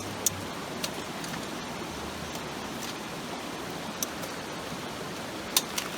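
Steady rush of a mountain stream, with a handful of short sharp clicks: two near the start, one in the middle and a close pair near the end, the loudest.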